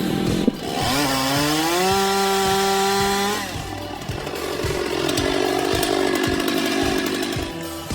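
Two-stroke chainsaw revving up, its pitch rising and holding at high throttle for a couple of seconds, then dropping back; it runs at speed again near the end.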